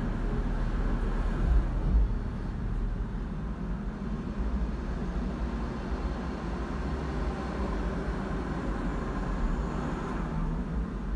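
Steady low rumble of vehicle noise, heard from inside a car, with two brief low bumps about a second and a half and two seconds in.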